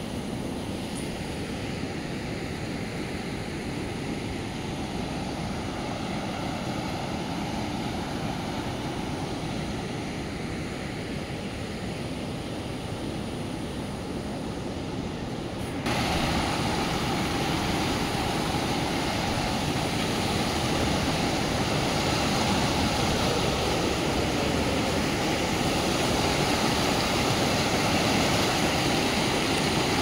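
Fast floodwater rushing over rocks and a low wall, a steady noise of churning water. About halfway through it suddenly gets louder and hissier, close to muddy water gushing over the wall.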